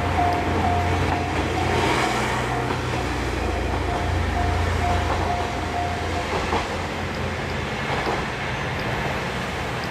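Japanese level-crossing warning bell ringing its repeated electronic ding about twice a second, over the steady low rumble of a diesel railcar running through the crossing. The bell stops about six seconds in, the sign that the train has cleared the crossing, while the train's rumble goes on.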